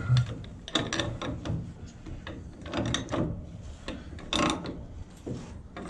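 Irregular metallic clicks and scrapes of a pipe wrench working the brake-shoe adjustment on a streetcar truck as the shoe is drawn in toward the wheel flange.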